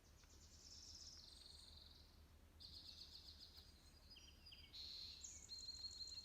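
A songbird singing faintly: three high, rapidly trilled phrases, the last one near the end the loudest.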